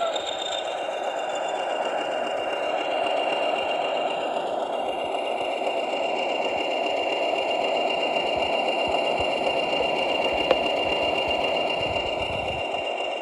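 A model locomotive's factory-fitted DCC sound decoder playing a diesel engine running steadily through its small onboard speaker, with a steady high whine over it. There is one sharp click about ten and a half seconds in.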